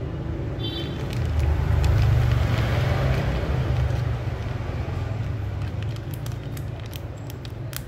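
Cordless hair clipper cutting hair over a comb (clipper-over-comb), under a low rumble of wind on the microphone that swells to its loudest about two seconds in. A few sharp clicks near the end.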